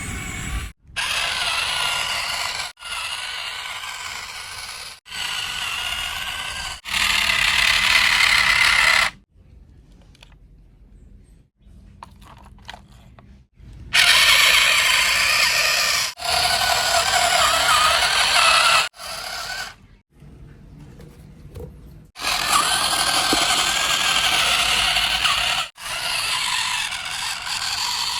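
Small electric motors and plastic gearboxes of remote-controlled toy construction vehicles whirring in short runs of a few seconds each. The runs start and stop abruptly, and the whine wavers in pitch as the motors load up.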